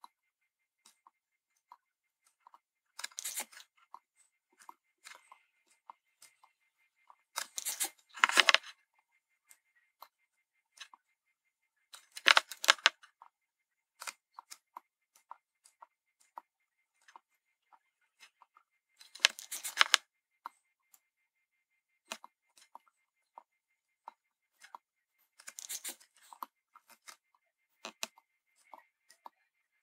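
Rosin-core solder crackling in six short bursts as a soldering iron melts it onto the pads of surface-mount LEDs on a circuit board, with faint ticks between.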